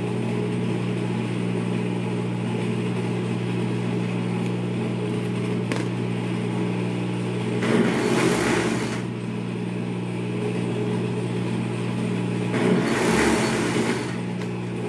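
Industrial overlock machine: its motor hums steadily, and it sews in two short runs of about a second and a half each, about eight and thirteen seconds in, as ribbing cuff bands are stitched closed.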